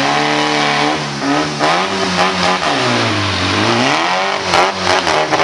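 Off-road trial buggy's engine revving up and down as the buggy crawls and climbs over rock steps, with its pitch falling low about halfway through before rising again.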